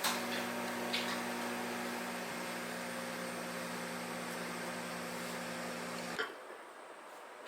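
A steady electrical mains hum from an appliance, with a few light clicks near the start. It cuts off suddenly with a click about six seconds in.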